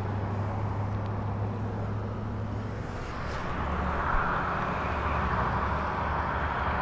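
Steady road traffic from a nearby highway. A passing vehicle's tyre noise swells over the second half and falls away near the end, over a constant low hum.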